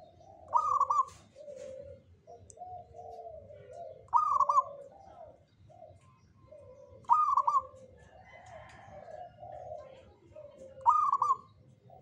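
Zebra dove (perkutut) cooing: a running series of soft, low coos, broken by four louder, higher-pitched notes about every three to four seconds.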